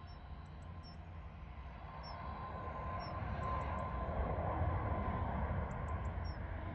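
Twin turbofan engines of an Airbus A320neo-family airliner climbing overhead: a jet roar that grows steadily louder as it approaches, with a steady high whine running through it. Small high bird chirps sound now and then over the top.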